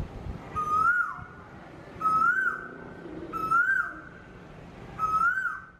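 A bird gives the same whistled call four times, about every one and a half seconds. Each call is a held clear note that rises briefly and then drops away, over a faint steady background hiss.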